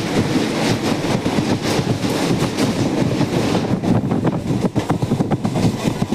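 A moving vehicle's steady rumble with rapid, irregular clattering.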